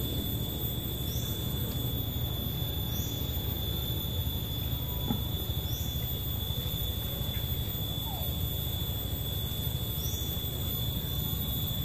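Outdoor ambience with no activity: a steady high-pitched whine runs throughout, a short rising chirp comes every two to four seconds, and a low rumble of noise lies underneath.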